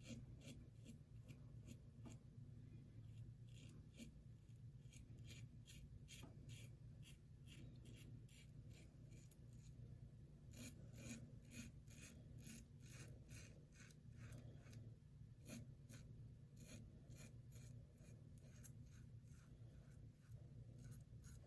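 King C. Gillette double-edge safety razor with a Wilkinson Sword blade scraping through lathered stubble on the face in short, quick strokes, a faint rasp with each stroke and a few brief pauses between runs. This is the second pass, shaving across the grain.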